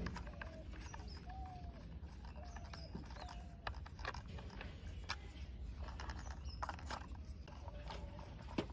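Faint clicks of a small screwdriver turning screws into the plastic underside of a toy auto rickshaw, with short squeaks recurring roughly once a second over a steady low rumble.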